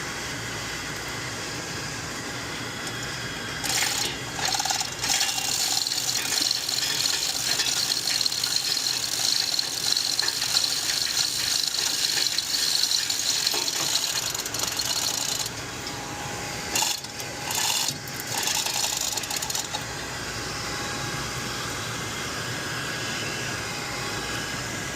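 Hand-tool work on the motor's fittings: a long run of fast ratcheting clicks and metal rattling starts about four seconds in and lasts roughly ten seconds. A couple of short clattering bursts follow, all over steady background noise.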